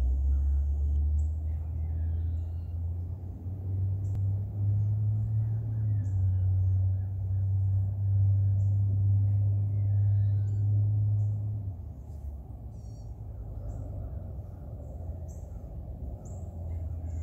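Faint chirps and short trills of small birds over a low, steady outdoor rumble that eases about twelve seconds in.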